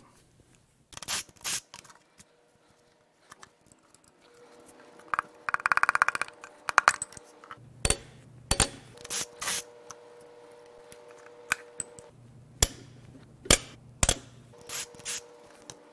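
Hand socket ratchet clicking on connecting-rod cap bolts in a bare engine block, with a rapid run of ratchet clicks about five to six seconds in. Single sharp metal clinks of tools against the block come now and then.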